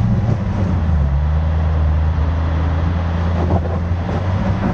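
Range Rover Sport's engine running steadily under load in low range on a steep climb of loose rock and dirt, all four tyres spinning for grip.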